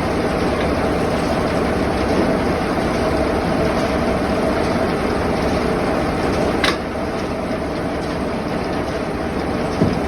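Sawmill machinery running steadily, with a sharp click about two-thirds of the way through, after which it runs a little quieter, and a low thump near the end.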